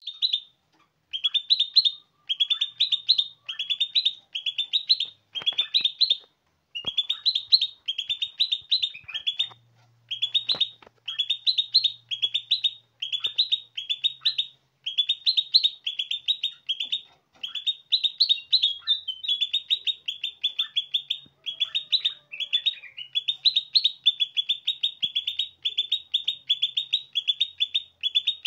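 Aviary songbird singing: short bursts of rapid, high chattering notes, about one burst a second, repeated almost without pause.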